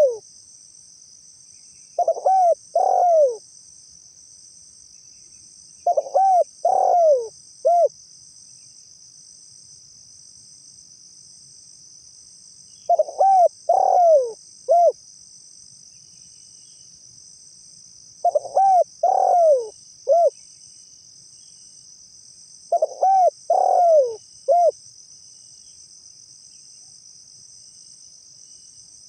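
Spotted dove cooing: repeated phrases of three or four mellow coos, each phrase about two seconds long and coming every four to six seconds. Steady high-pitched insect shrilling runs underneath.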